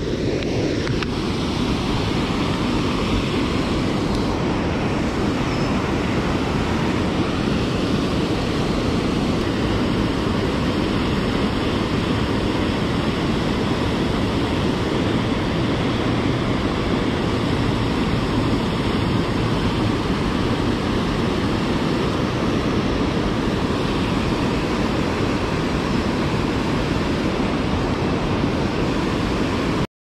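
Steady rush of river water pouring over a low-head dam and churning against the wall below it.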